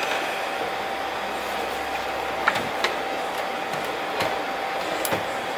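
Steady background hiss with a faint steady hum-like tone and a few light clicks.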